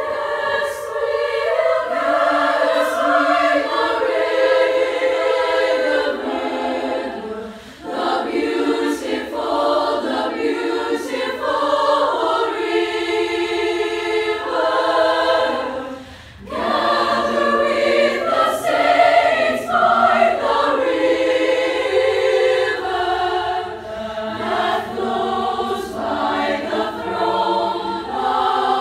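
Women's choir singing a cappella in several voice parts, entering together at the start. The singing dips briefly twice between phrases.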